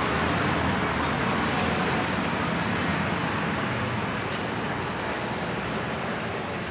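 Motor vehicle noise: a steady rush with no clear engine note, which swells just as it begins and slowly eases off.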